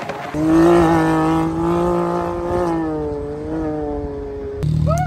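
Vehicle engine held at high, steady revs, its pitch sagging a little, then an abrupt change about four and a half seconds in to a lower rumble with a repeating rising-and-falling warble.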